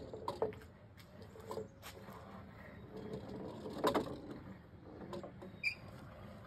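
Wooden ball-climber bar being tilted and shifted in its frame, giving a scatter of light wooden knocks and creaks as a golf ball rolls along it. The loudest knock comes about four seconds in, and there is a brief high squeak near the end.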